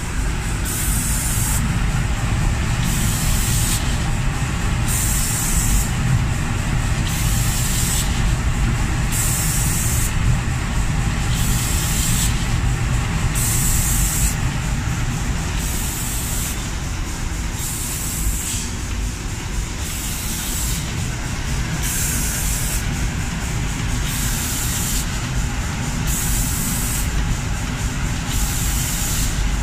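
Automatic cabinet-door spray-painting machine running: the spray guns hiss in bursts of about a second, roughly every two seconds, over a steady low machine rumble.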